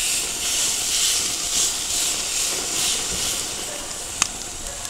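Flat iron steaks sizzling on the hot grates of a gas grill, pressed down with tongs: a steady hiss that swells and fades, with one sharp click about four seconds in.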